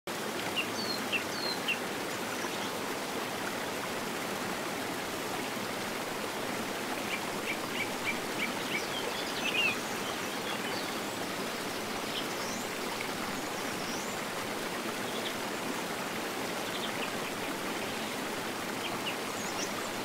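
Steady rush of running water with short, high bird chirps and tweets scattered over it, in small clusters, the busiest about halfway through.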